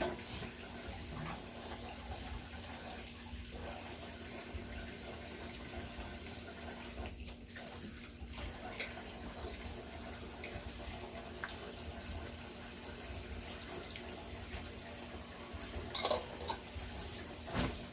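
Water running into a kitchen sink from the tap, a steady, fairly quiet flow. A couple of light knocks come near the end.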